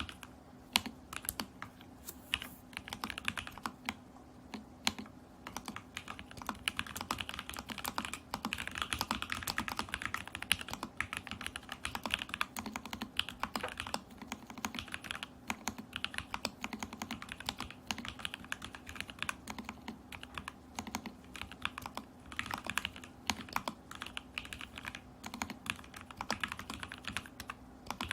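Steady, fast typing on an Alice-layout mechanical keyboard in a stacked acrylic case, with lubed and filmed Lavender switches. Quick runs of keystroke clacks come with short pauses between bursts, over a faint steady hum.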